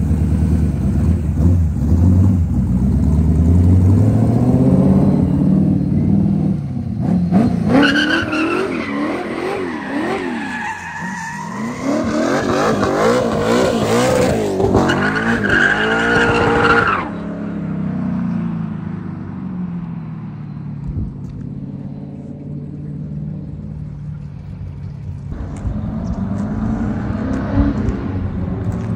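Small-block Chevy V8 in a Volvo 240 revving hard, then the rear tyres squealing in a long wavering howl for about ten seconds while the car spins donuts under power through its new Torsen limited-slip differential. The squeal cuts off suddenly, leaving the V8 running at lower revs.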